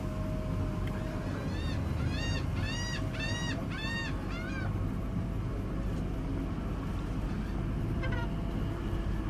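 Small boat's outboard motor running steadily at low speed, moving away from the dock. About one and a half seconds in, a gull gives a quick series of about seven nasal calls, and one more short call comes near the end.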